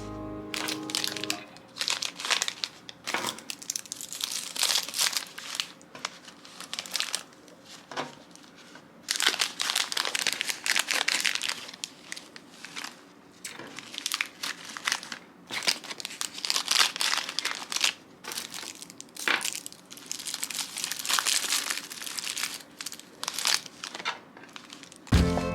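Plastic packaging crinkling and rustling as it is handled, in repeated bursts of a second or two with short pauses between.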